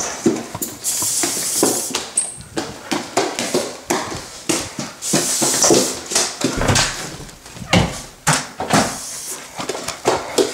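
A can of Lysol disinfectant spray hissing in two bursts of about a second each, among a run of knocks, thumps and footsteps.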